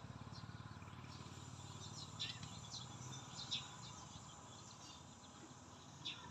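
Faint outdoor ambience: a low steady hum with a few short, high chirps scattered through it, the clearest about three and a half seconds in.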